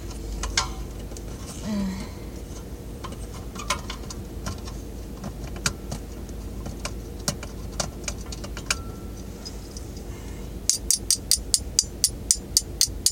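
Scattered clicks and taps of small parts and hand tools being handled during a ceiling fan teardown, over a steady low hum from the idling car and its heater. About eleven seconds in, a fast, even run of sharp clicks begins, about five a second.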